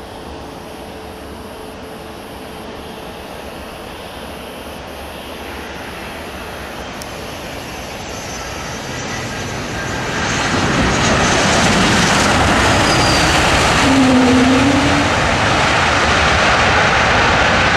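Airliner engines passing close by: a steady rush that grows louder from about eight seconds in and is at full strength from about eleven seconds on. A brief tone sounds near the loudest point.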